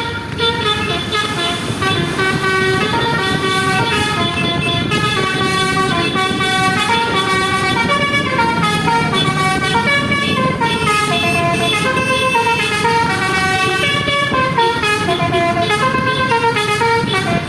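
Basuri telolet bus horn playing a continuous melody of quickly stepping tones, over a low rumble.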